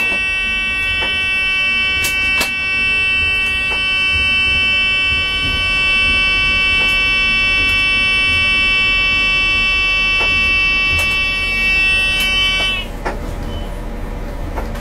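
Loud, steady electronic alarm tone in the train's driving cab, held without a break and then cutting off suddenly near the end, over the low rumble of the slowly moving train and a few clicks as the wheels cross points.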